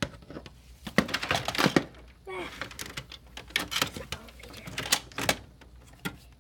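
Irregular clicks and knocks of plastic as dolls and dollhouse parts are handled and moved.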